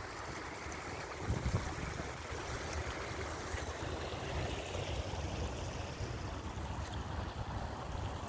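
Water trickling and splashing over the rocks of a small landscaped stream, with wind buffeting the microphone.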